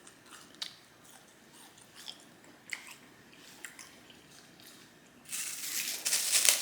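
Quiet, close chewing with small wet mouth clicks. About five seconds in, a loud crinkling rustle starts as food packaging is handled.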